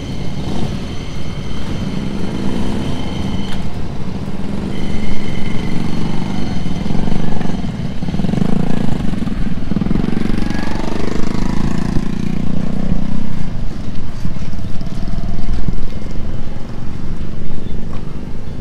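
A small motorcycle engine running nearby, rising and falling in pitch as it rides about. It is loudest from about 8 to 13 seconds in. A steady high whine runs through the first few seconds and breaks off briefly.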